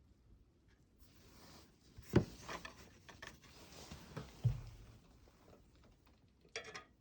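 Light hand-work noises on a workbench: faint rubbing and scraping with a few small clicks, and two sharp knocks, about two seconds in and again about four and a half seconds in.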